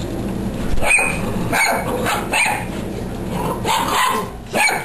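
A dog barking in about five short, separate barks.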